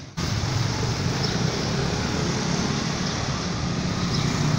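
Street traffic: a steady wash of motor scooter and motorbike engines passing close by, after a brief drop in the sound at the very start.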